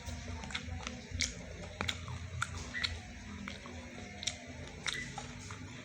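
A person chewing fried sweet corn with the mouth close to the microphone, irregular sharp crunchy clicks about every half second.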